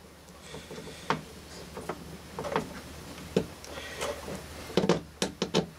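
Scattered plastic clicks and knocks from a small mechanical wind-up timer being handled, over a low steady hum; the clicks come thicker near the end.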